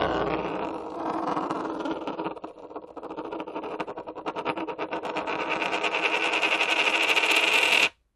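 A coin spinning down: a whirring ring that turns into a rattle of quicker and quicker clicks as it wobbles lower, growing louder, then stops abruptly near the end.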